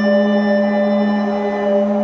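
Creepy ambient drone music: a low chord of held, unchanging tones with a faint hum over them, no beat or melody.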